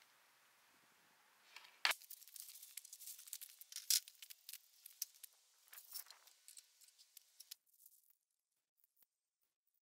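Lumber being handled on metal sawhorses: two sharp knocks of boards, about two and four seconds in, among rustling, scraping and scuffing steps on grit and dry leaves. The sound cuts off abruptly near the end.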